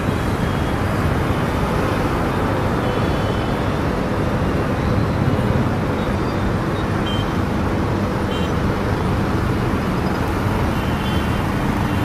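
Steady roar of a jet airliner's turbofan engines at climb power as it climbs out after takeoff.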